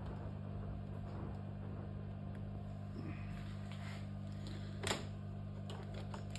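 Quiet, steady low hum of room tone, with one sharp click about five seconds in.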